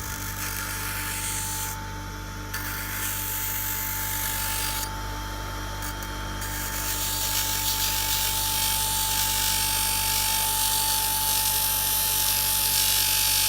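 RYOBI bench grinder running with a steady motor whine and hum while its wheel grinds a small piece of metal, the rasp of the grinding breaking off twice in the first few seconds, then continuing steadily and louder from about seven seconds in.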